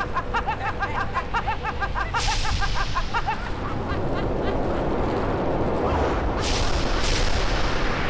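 A woman's rapid, high-pitched cackling laughter that breaks off after about three seconds. It overlaps and gives way to a loud rushing sound effect that swells twice.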